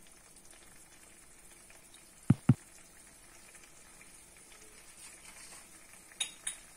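Tamarind curry simmering faintly in a pan on a gas burner. Two pairs of sharp clicks break through, one about two seconds in and one near the end.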